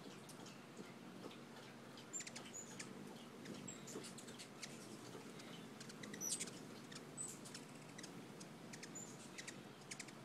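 Faint, high-pitched hummingbird chip calls: scattered short, squeaky ticks, several a second, with a louder cluster about six seconds in.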